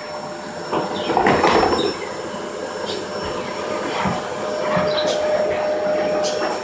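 Small puppy growling continuously, a rough rumbling growl with a steady higher whining note held through the last two seconds, as a hand reaches for it: possessive growling over a toy it is guarding.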